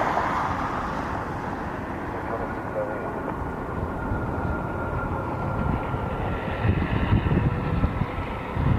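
Jet airliner engines heard at a distance: a steady rumble with a faint high whine that slides slowly lower in pitch. Wind gusts buffet the microphone near the end.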